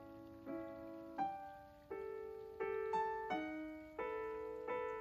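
Background music on piano: single notes and chords struck about once or twice a second, each ringing and fading.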